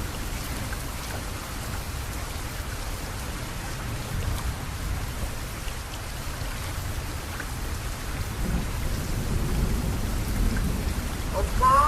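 Steady rain falling, with low rolling thunder rumbling underneath that swells about two-thirds of the way through. Near the end a man's chanting voice starts to rise in.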